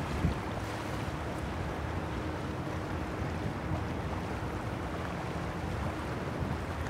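Wind buffeting the microphone over the rush of water along a sailboat's hull under sail, with a brief bump about a quarter second in.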